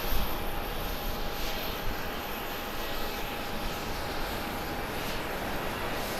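Jet airliner, a Japan Airlines Boeing 777, rolling out on the runway just after touchdown: steady rushing jet-engine noise over a low rumble that is heaviest in the first second.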